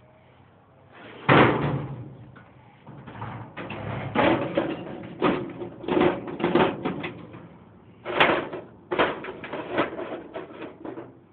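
Steel Craftsman toolbox drawer and the loose hand tools in it clanking and rattling as they are handled. A sharp knock comes about a second in, followed by a string of irregular clanks.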